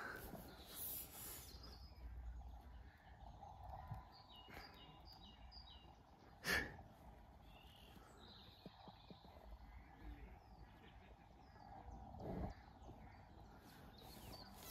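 Quiet outdoor background in which a bird gives a quick run of about six short, high chirps about four seconds in. A short sharp knock a couple of seconds later is the loudest sound, and a softer thud comes near the end.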